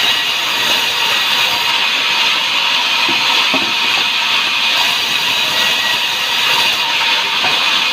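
A sawmill saw running and cutting through timber: a steady, loud, high hiss with a faint steady whine, unbroken throughout.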